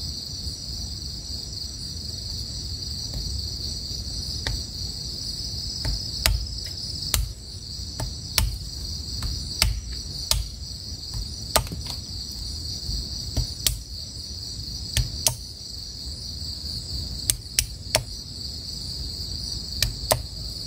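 A large knife chopping and cutting a small stick against a wooden log: sharp, irregular knocks from about four seconds in, some closely spaced. A steady chorus of crickets shrills underneath.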